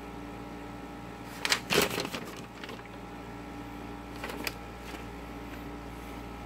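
Paper instruction sheet rustling as it is turned over and refolded, loudest about a second and a half in, with lighter handling rustles a few seconds later.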